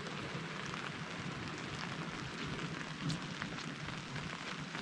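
Steady rain falling, with scattered individual drops ticking and one slightly louder drop about three seconds in.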